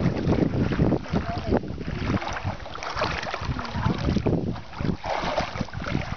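A dog wading through shallow water, half walking and half swimming, its legs splashing in uneven surges. Wind gusts on the microphone rumble underneath.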